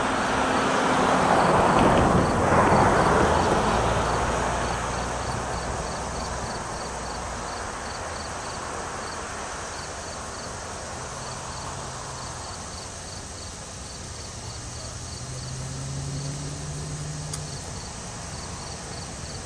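Distant EMD GP38-2 diesel locomotive approaching, its two-stroke V16 engine a faint low drone that shifts pitch in steps. A broad rushing noise swells and fades in the first few seconds, and insects chirp in quick regular pulses throughout.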